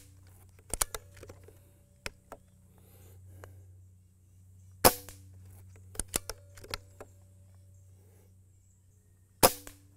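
Benjamin Marauder .22 PCP air pistol firing twice, about four and a half seconds apart, each shot a sharp crack. Lighter clicks and ticks fall between the shots.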